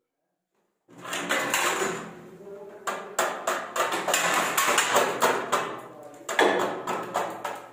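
Steel plastering trowel and putty knife scraping and knocking against wet plaster of Paris on a ceiling: a run of rough scrapes and sharp metal clicks that begins about a second in.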